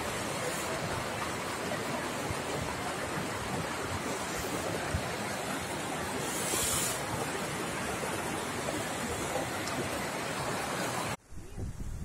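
Steady rushing of water from a mountain waterfall and its rocky stream. It cuts off abruptly near the end, leaving quieter wind buffeting the microphone.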